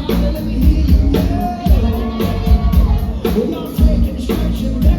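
Background music: a song with a sung melody over a steady bass beat.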